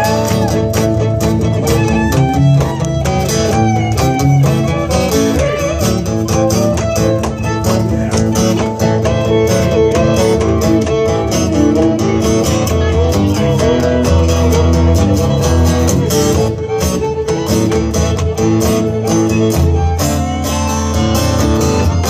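Live band playing an instrumental stretch of an upbeat song: strummed acoustic guitars over a steady beat, with no vocals.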